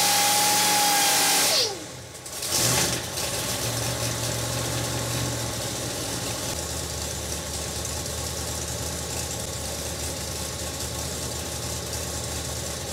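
Supercharged 454 cubic-inch Chevy big-block V8 on an engine dyno: it runs at a held speed with a high whine, then falls away abruptly about a second and a half in. About a second later it picks up again with a brief louder burst and settles into a steady, quieter idle.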